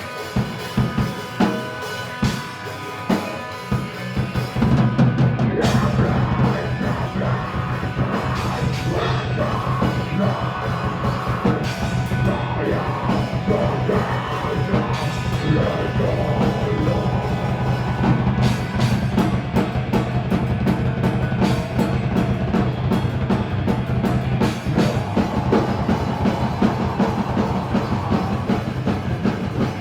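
Rock music played by a band. Drums play alone at first, then about four seconds in the rest of the band comes in with a heavy low end and keeps playing.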